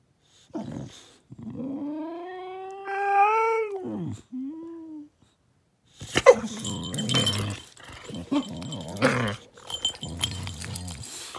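Boxer dogs vocalizing at each other: a long whining call that rises and then falls, then a short one. From about six seconds in, rough growling mixed with scuffling.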